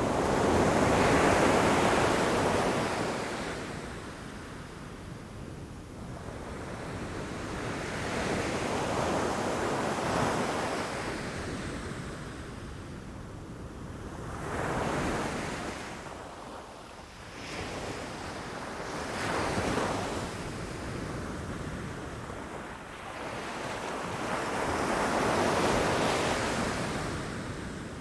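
Ocean waves breaking against rocks, about five surges in turn, each swelling and washing back over a few seconds.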